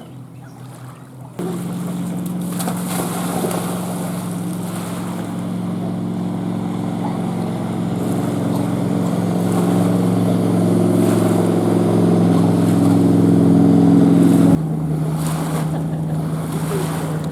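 An engine running steadily: a low droning hum that slowly grows louder, then drops abruptly to a quieter steady hum near the end.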